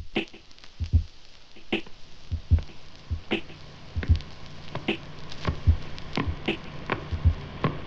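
Sparse drum beat: low kick drum and sharper snare-like hits alternate about every 0.8 seconds in a slow, even rhythm. A low bass note comes in about two seconds in and holds under the drums.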